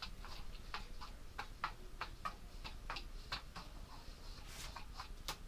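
Diabolo spun up by the string from two hand sticks, giving a faint run of quick ticks, about three or four a second, as the string works on the axle.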